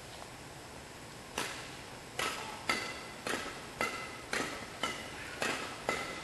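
A steady series of sharp knocks, about two a second, each with a brief ringing tone, starting about a second and a half in.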